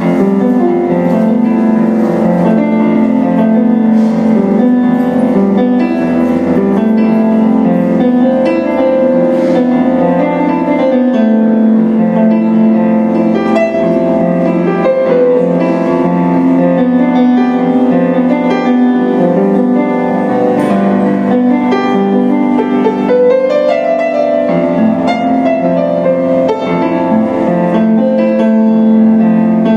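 Kawai grand piano played solo: a continuous flow of notes, melody over chords, at a steady loud level.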